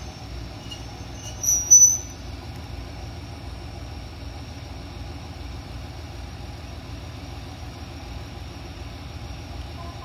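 JR Hokkaido H100 DECMO diesel-electric railcar running steadily at the platform, its diesel engine and generator giving a low even rumble. About one and a half seconds in, a short, loud, high-pitched squeal sounds twice in quick succession.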